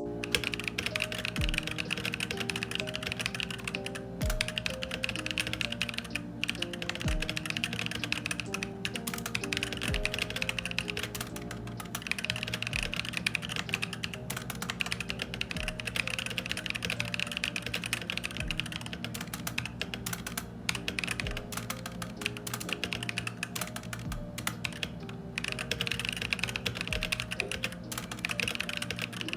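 Continuous typing on a WEIKAV Meta68 65% mechanical keyboard with brown switches, a steady stream of keystroke clicks. Soft background music plays under it.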